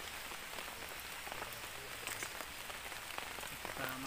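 Heavy rain falling steadily, with scattered individual drop hits.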